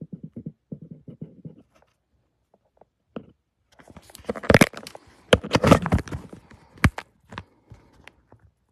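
Handling noise of a camera being turned around and settled over a craft desk: low rubbing rumbles at first, then, about four seconds in, a few seconds of loud clicks, knocks and rustling.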